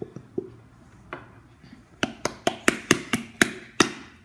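A quick run of about nine sharp knocks, roughly five a second, starting about two seconds in, with a few lighter taps before: a hard object knocking against a container while slime ingredients are being poured or mixed.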